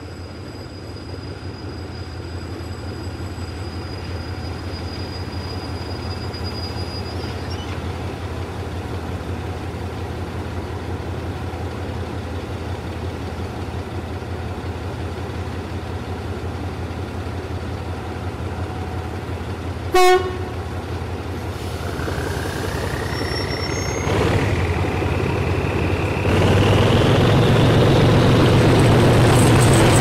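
Diesel locomotive engine idling with a steady low rumble. About two-thirds of the way through it gives one short horn toot. The engine then throttles up with a rising whine and grows louder in two steps.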